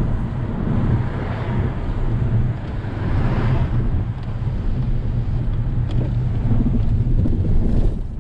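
2011 Volkswagen GTI's turbocharged 2.0-litre four-cylinder, running a stage 2 tune, pulling on the road as heard from inside the cabin, with road and tyre noise. The engine sound dips briefly a few times.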